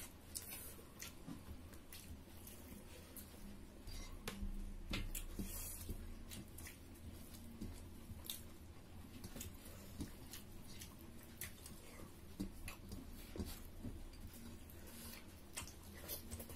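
People chewing and lip-smacking while eating pork curry and rice with their fingers, heard as a string of small wet clicks and squishes, with fingers working food on the plates. A steady low hum lies under it.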